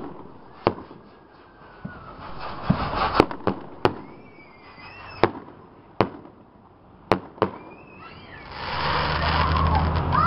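Aerial fireworks bursting overhead: about seven sharp bangs at uneven spacing, with a patch of crackling about three seconds in. Near the end a steady low engine rumble rises and becomes the loudest sound.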